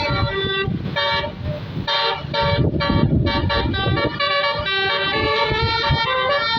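Indonesian tour bus's telolet multi-tone air horn playing a melody of stepped notes, broken by a brief hiss about a second and a half in, over a low rumble.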